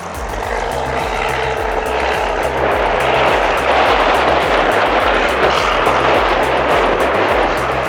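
Background music with a steady beat over a loud rushing noise, like a heavy machine running, that swells about three seconds in.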